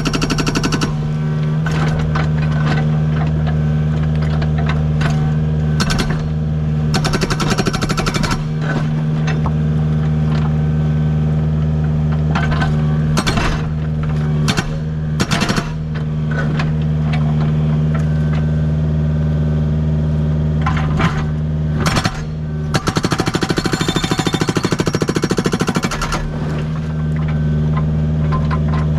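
Agrotk 680 hydraulic breaker hammer on a Kubota U55 mini excavator pounding rock in bursts of rapid blows, over the steady drone of the excavator's diesel engine. The longest burst comes near the end, and single sharp strikes fall between the bursts.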